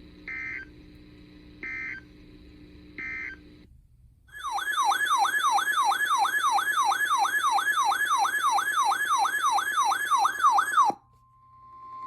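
Three short screeching bursts of EAS SAME data, the end-of-message code. Then, for about six and a half seconds, the loudest sound: a siren-like tone warbling up and down about three times a second, which cuts off suddenly. Near the end a steady single-pitch alert tone starts, the NOAA Weather Radio warning alarm tone.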